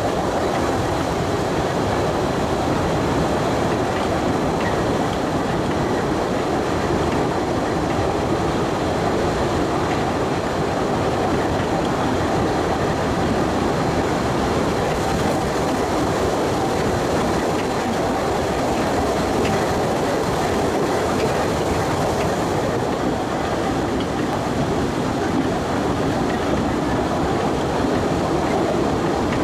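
Narrow-gauge Postojna Cave tourist train running steadily along its rails, heard from aboard an open car: a continuous, even rumble and rattle of wheels and cars on the track.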